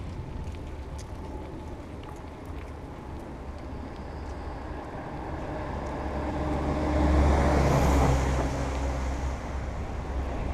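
Road traffic passing close by: a vehicle's engine and tyre noise swell to a peak about seven to eight seconds in and then ease off, over a steady low rumble.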